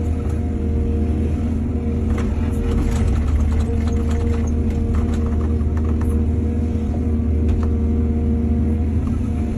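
Excavator's diesel engine running steadily under load, with a scatter of sharp clicks and knocks in the middle of the stretch.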